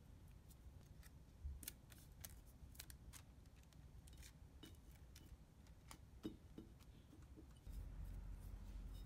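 Near silence with faint, irregular crisp clicks and rustles of thin rose window paper squares being handled and pressed onto a glass jar with a glue brush. A low hum comes in near the end.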